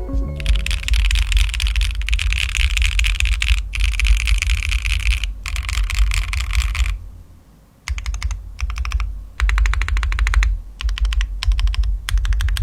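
Custom mechanical keyboard being typed on fast: a dense run of rapid keystrokes for about the first seven seconds, broken twice by short pauses, then after a brief quiet gap, shorter bursts of typing separated by brief breaks.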